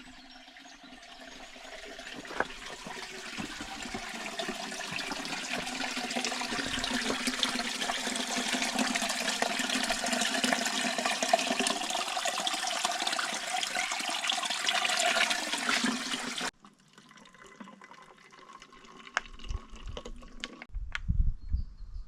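Water rushing and splashing, growing steadily louder, then cutting off abruptly about sixteen seconds in. A quieter stretch follows, with a few low thumps near the end.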